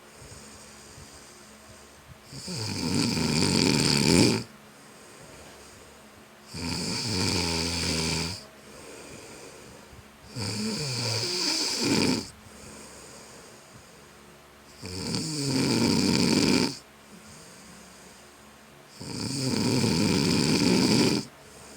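A person snoring in deep sleep: five loud snores, one about every four seconds, each lasting about two seconds, with much quieter stretches between.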